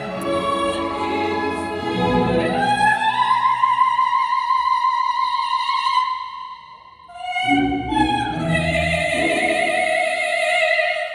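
A soprano singing in operatic pop style over accompaniment, holding a long high note with wide vibrato, then after a short breath a final sustained note with vibrato that closes the song.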